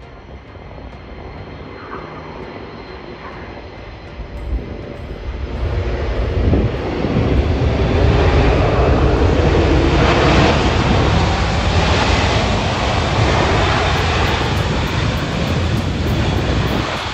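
Antonov An-124-100's four Ivchenko-Progress D-18T turbofan engines just after touchdown as the freighter rolls out along the runway. The engine noise swells about five seconds in, stays loud through the middle, and eases a little near the end.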